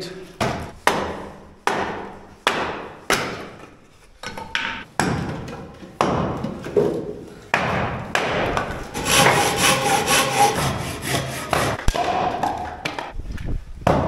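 Firewood being cut by hand in an echoing stone room. First comes a run of sharp wooden knocks, about one every 0.7 seconds. Later there are several seconds of steady rasping hand-saw strokes.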